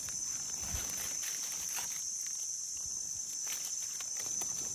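Steady high-pitched drone of insects, with scattered soft clicks and dry-leaf rustling and a light thump about a second in as a hand picks a small mushroom out of the leaf litter and trims it with a knife.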